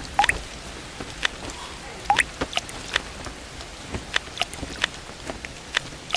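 Rain falling with a steady hiss and irregular water drops dripping and plopping, a few with a short rising plink.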